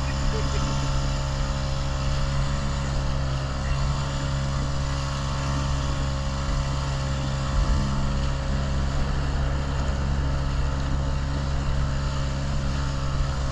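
Motorboat engine running at a steady speed, an even drone with a constant pitch.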